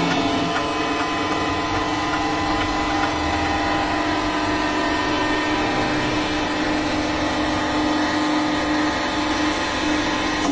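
Hydraulic press pump and motor running steadily under load with a loud, even hum as the ram slowly squashes a field hockey ball.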